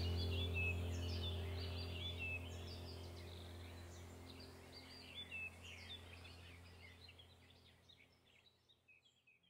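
Ambient background music with a low steady drone and birdsong chirping over it, fading out gradually to silence near the end.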